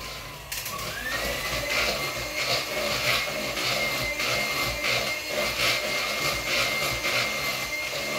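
Electric hand mixer beating cake batter in a bowl. About half a second in it gets louder and its whine climbs to a higher speed, then runs steadily with a rhythmic swish of the beaters through the batter about twice a second.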